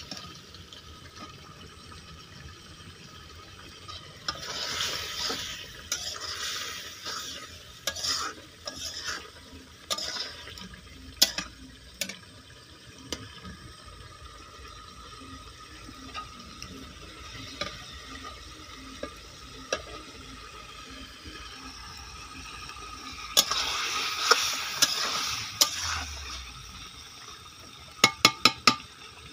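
A spatula stirring chicken and potato masala in a steel kadai over a wood fire, scraping the pan in bursts while the curry sizzles. A few sharp taps come in a quick run near the end.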